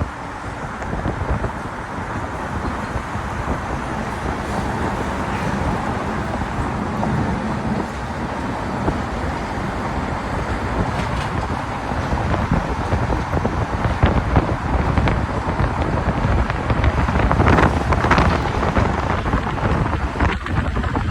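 Steady highway traffic rumble with wind buffeting the microphone, and a few short knocks near the end.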